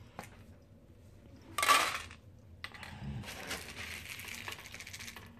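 Dry cat kibble rattling against a plastic scoop and a clear storage bin. A short loud rattle comes about a second and a half in, then steady scooping and scraping through the kibble.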